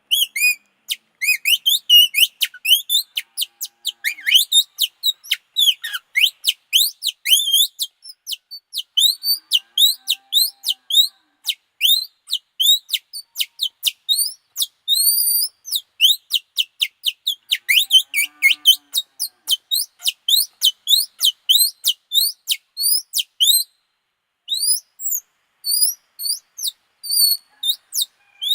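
Bird-like chirping whistled on a small piece of torn, stretched plastic film used as a homemade bird call. It is a rapid, unbroken series of short, high, sliding chirps, several a second, with one brief pause late on.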